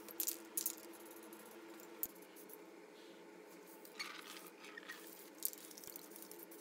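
Small workshop handling noises during spray painting of steel stove parts: a few short sharp clicks and clinks, and a brief hiss about four seconds in, over a steady low hum.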